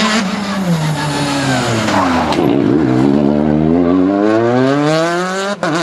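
Rally car braking into a tight junction, its engine note falling as it slows, then accelerating hard away with the engine note climbing steadily. A short break near the end marks an upshift.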